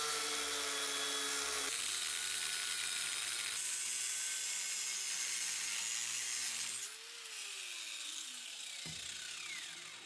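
Angle grinder with a thin cutting disc cutting into the rusty steel handle of an antique cleaver: a steady motor whine over harsh cutting noise. About seven seconds in it is switched off, and the disc winds down with a falling whine.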